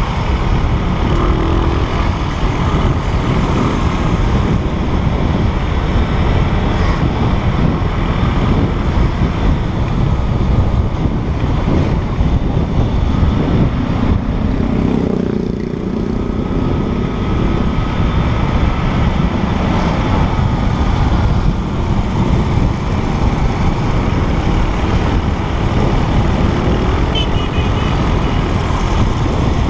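Motor scooter riding in city traffic, heard from a camera mounted on the bike: a steady, loud rush of wind and engine noise that eases briefly about halfway through.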